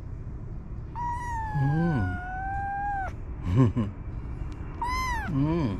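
A very young kitten, about 25 days old, crying with high, thin mews. One long drawn-out cry starts about a second in and lasts about two seconds, sagging slightly in pitch; a shorter one follows near the end. Shorter, lower calls come in between.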